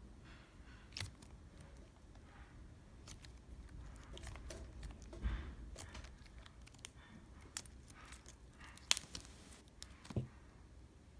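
Clear glitter slime being stretched and pressed in the hands, making faint scattered clicks and crackles, with a few sharper pops: about a second in, around five seconds in, near nine seconds and just after ten.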